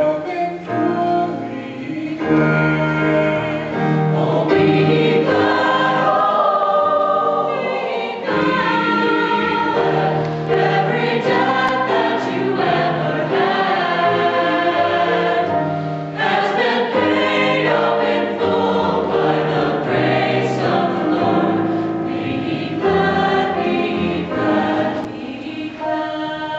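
A choir singing a gospel song in several voice parts, with sustained chords that change every second or so.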